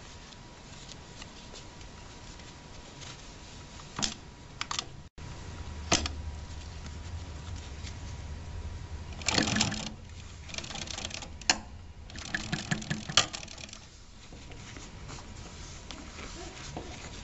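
Consew 282R-1 postbed needle-feed industrial sewing machine stitching in several short bursts of rapid, even clatter from the needle mechanism. A few sharp separate clicks come before the stitching.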